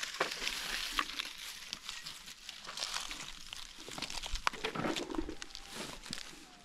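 Dry fallen oak leaves crunching and crackling underfoot on rocky ground: irregular footsteps with scattered sharp clicks.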